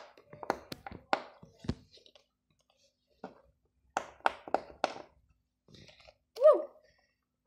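Small plastic toy figurines and trinkets being handled and set down on a wooden tabletop: scattered light taps and clicks in two clusters. About six and a half seconds in there is one short squeak that rises and falls in pitch, the loudest sound.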